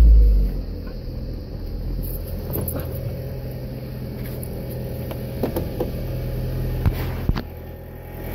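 VW Beetle 1.8 turbo four-cylinder engine starting with a brief loud surge, then idling steadily. A few clicks and knocks sound over the idle near the end.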